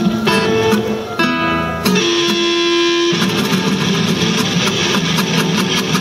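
Live band music led by electric and acoustic guitars, with picked notes giving way to fuller, busier strumming about halfway through.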